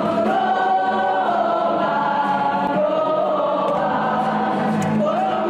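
A group of women singing a Māori song together, with long held notes, as the accompaniment to a poi dance.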